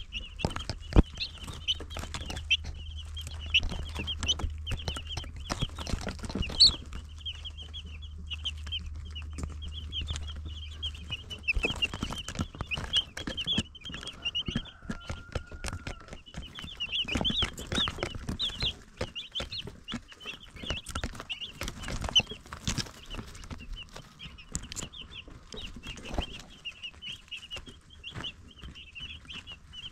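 A brood of baby chicks peeping continuously: many short, high chirps overlapping without a break. Scattered taps and knocks run through it, and a low steady hum cuts off about a third of the way in.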